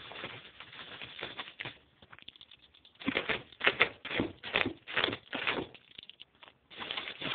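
Plastic bubble wrap rustling and crinkling as it is handled and pulled apart. It comes in spells, with a short pause about two seconds in and a run of louder crinkles in the middle.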